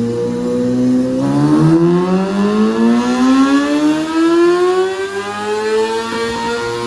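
Kawasaki ZX-6R race bike's inline-four engine on a dyno pull: the revs climb in one smooth, steady sweep from about a second in and level off near the top just before the end.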